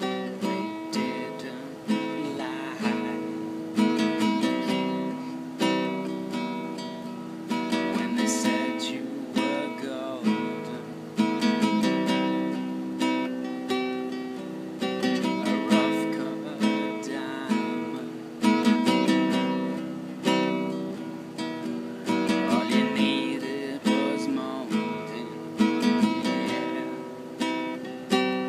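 Classical-style acoustic guitar playing an instrumental passage of strummed and picked chords, with a fresh chord struck about every two seconds.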